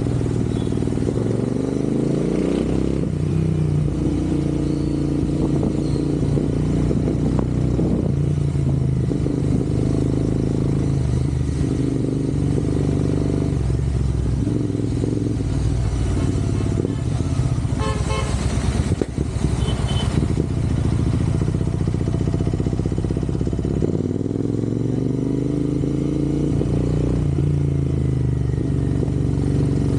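Royal Enfield Interceptor 650's parallel-twin engine running while riding, its pitch climbing again and again through acceleration and gear changes. A little past halfway there is a brief rougher, rattling stretch.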